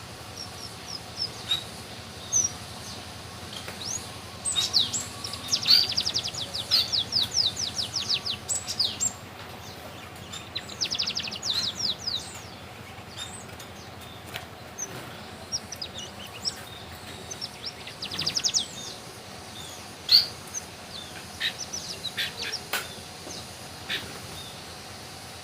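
Red avadavat (strawberry finch) singing canary-style song learned from a tutor canary: bursts of fast high trills broken by pauses and single chirps.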